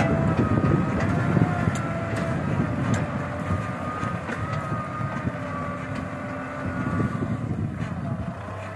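Kubota M6040 tractor's four-cylinder diesel engine running under load as it pulls a disc plough through dry ground, a continuous low rumble with a thin whine over it. It eases off a little near the end as the tractor turns.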